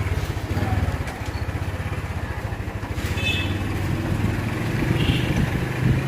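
Motorcycle engine running with a fast, steady low pulse as the bike rides along.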